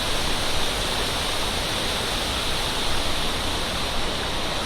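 Mountain stream water rushing over rocks in a steady hiss, with no breaks or changes.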